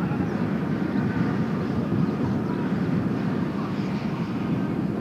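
Kawasaki T-4 jet trainers' turbofan engines running, a steady rumble with a faint high whine, with strong wind buffeting the microphone.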